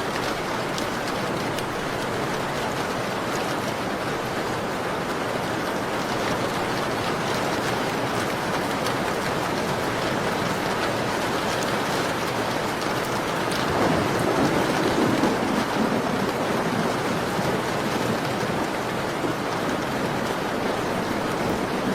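Steady rain falling against a window: a dense, even hiss with faint scattered ticks. A little past the middle the sound swells louder for about two seconds.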